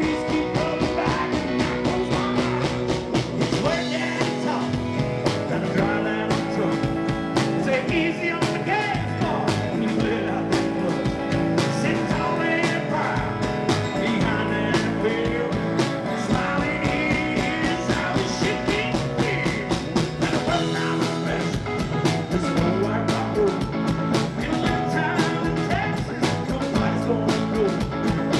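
Live country-rock band playing an instrumental stretch of a song, with a steady drum beat and electric guitar.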